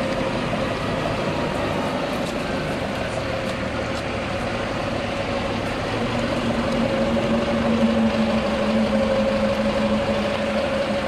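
An engine idling steadily with a constant whine, and a second, lower hum joins about six seconds in.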